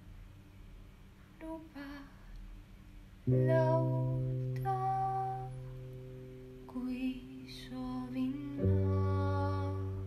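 Music: a voice singing a slow melody over held instrumental chords, one chord struck about three seconds in and a new one near the end.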